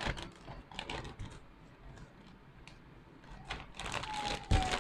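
Plastic zip-top bag crinkling, with small clicks as its zipper seal is pressed shut along the track; a dull thump near the end.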